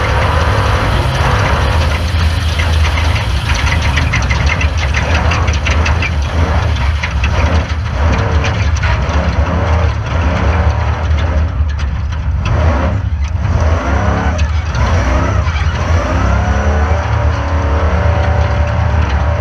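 Off-road race car engine running loudly and continuously at speed, its pitch rising and falling with the throttle.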